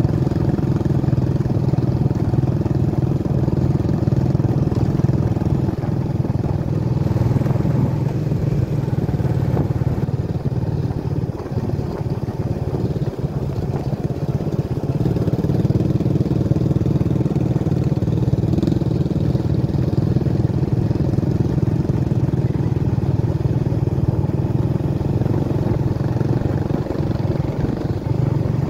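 Motorcycle engine running at a steady cruise, heard from the rider's seat. The engine note eases off about ten seconds in and picks up again a few seconds later.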